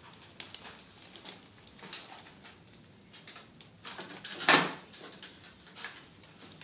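Kittens scuffling about: light scratches, taps and pattering, with one louder scrape about four and a half seconds in.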